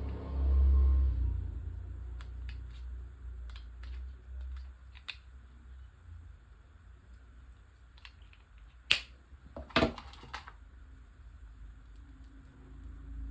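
Handling noise from unboxing AirPods Pro earbuds and their case: a low rub about a second in, scattered light clicks and taps, then two sharper snaps about a second apart near the end.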